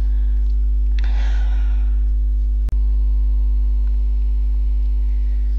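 Steady low electrical hum, with a short breathy rush of noise about a second in and a brief dropout with a click about halfway through.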